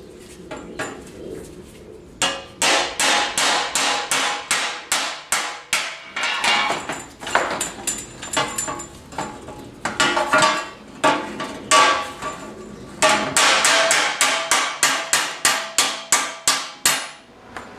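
Hammer striking steel in quick runs of blows, about three a second, each strike ringing briefly, with short pauses between the runs. It is the sound of driving the rivets and hinges off a tractor seat pan.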